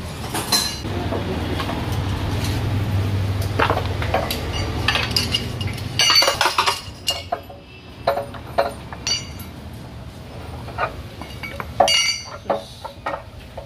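Scattered metal clinks and knocks of hand tools on a steering rack and its steel subframe as the rack end is worked off the rack shaft. A low steady hum runs underneath and fades out about halfway through.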